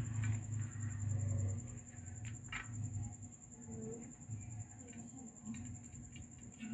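Scattered light clicks and taps of a kitten's paws and claws on a glass tabletop and a plastic lid, over a steady high-pitched whine and a low rumble that fades out about two seconds in.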